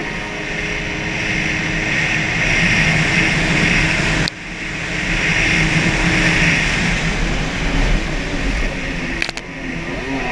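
Stand-up jet ski engine running hard at speed, heard from on board, with rushing water and wind noise. The sound breaks off abruptly about four seconds in and picks up again, and there are a couple of sharp clicks near the end.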